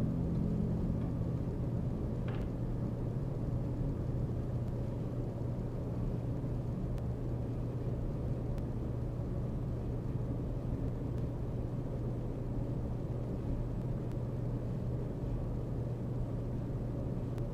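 Domestic cat purring, a steady low rumble that does not let up.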